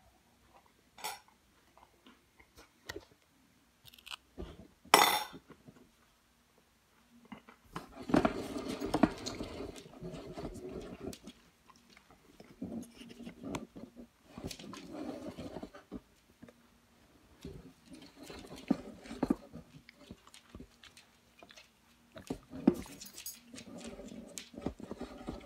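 Chewing and sharp clicks of a fork against the bowl in the first few seconds, the loudest about five seconds in. Then a small dog makes noises in four bursts of two or three seconds each.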